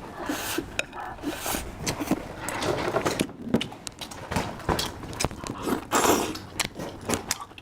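Scattered light clicks, taps and brief rustling.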